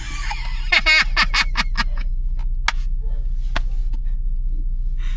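A person laughing in quick repeated bursts about a second in, followed by several sharp clicks, over a steady low hum.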